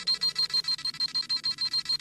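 Dragon Ball Z scouter sound effect: a rapid electronic beeping, a high tone pulsing about a dozen times a second, as the scouter scans a power level.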